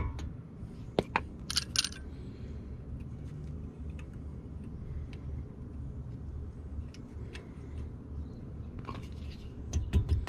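A few light metal taps and a short metallic jingle about one and a half seconds in, from a hammer and brake hardware being worked on a front brake caliper, over a low steady hum; a fainter rattle comes near the end.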